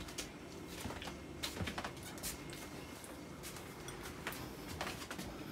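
Faint, irregular rustling and small crackles of leaves and stems as raspberry canes are handled during berry picking.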